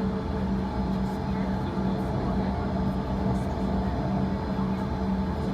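Steady cabin hum of a Bombardier CRJ-200 holding on the ground: a constant low drone with a steady tone running through it.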